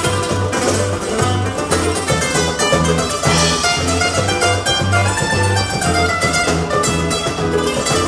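Nylon-string acoustic guitar playing a rapid run of plucked notes over an electric bass playing a steady pulse of low notes, in a live band performance.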